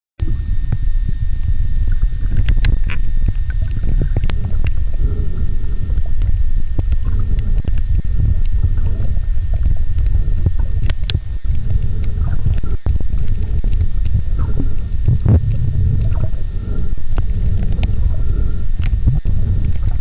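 Underwater sound picked up by a camera in a waterproof housing: a steady low rumble of water moving against the housing, scattered with sharp clicks and crackles, and a faint steady high whine.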